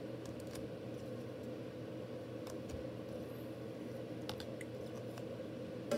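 Steady low room hum with a few faint soft clicks, from plastic-cased trading cards being handled and swapped out of view.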